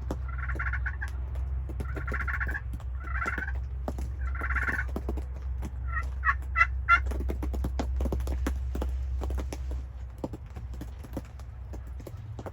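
Wild turkey gobbler gobbling several times, with a closer, louder gobble about six seconds in. A steady low rumble runs underneath until near the end, with scattered faint ticks.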